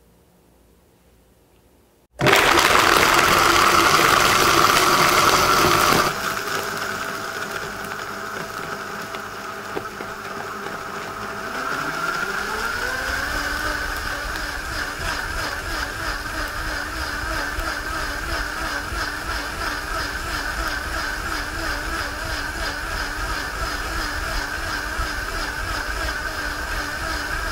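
Vitamix A3500 blender starting about two seconds in on its frozen-drink preset program. It is loud and rough for about four seconds, then quieter, and a little before halfway its motor whine rises in pitch and holds steady at the higher speed.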